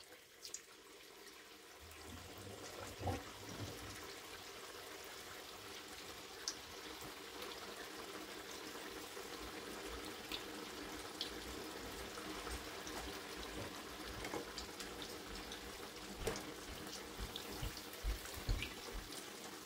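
Spring rolls deep-frying in hot oil in a wok: a steady sizzle that builds about two seconds in, with scattered small pops. Near the end a few light knocks as a slotted spatula turns the rolls in the pan.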